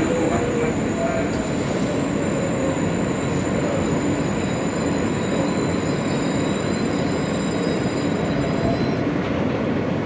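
R143 subway car running on the rails, heard from inside the car: a steady rumble with a thin high whine over it, as the train slows into a station near the end.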